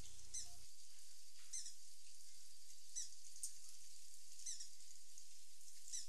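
Brazilian ruby hummingbird giving short, high chip calls, one about every second and a half, over a steady hiss.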